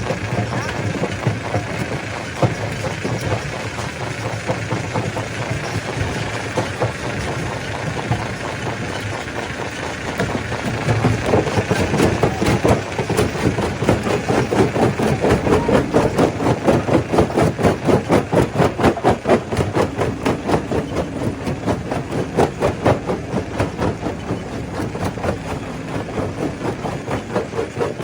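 Stone crusher machine running: a steady mechanical drone that, about ten seconds in, turns into a rapid, even rhythmic beat. The beat is loudest in the middle and eases a little near the end.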